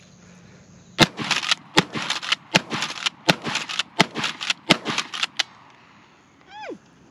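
A Kel-Tec KSG 12-gauge bullpup pump shotgun fired rapidly: about six loud shots under a second apart, with smaller sharp clacks and cracks between them. Near the end, a short falling whistle-like sound.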